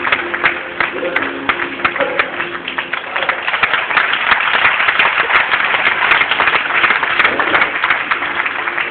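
Large audience applauding, dense clapping throughout, with a few held music notes faintly underneath in the first couple of seconds.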